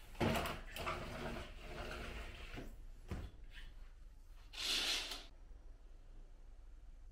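A sliding glass window rolling open along its track with a rattling rumble for about two and a half seconds, then a knock about three seconds in. A short rushing swish follows a couple of seconds later.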